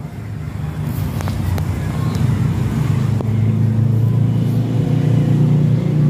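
Haier inverter top-load washing machine running, its motor turning the tub with a steady low hum that grows louder, with a few light clicks. It is running normally after its faulty control board was replaced.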